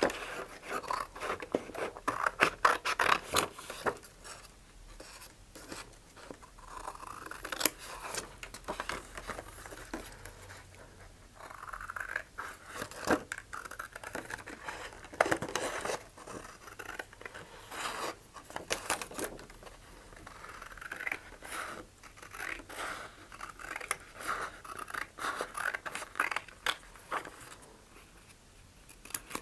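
Scissors cutting decals out of a paper water-transfer decal sheet: a long, irregular run of short snips, with the sheet rustling between cuts.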